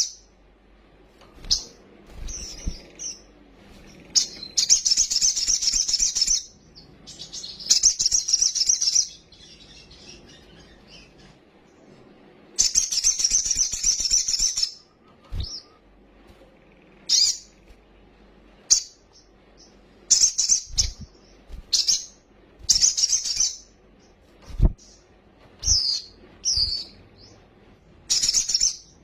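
Kolibri sogok ontong, a small sunbird-type songbird, singing in bursts of high-pitched rapid chattering song, each one to two seconds long, separated by short pauses. A few brief low knocks come between the phrases.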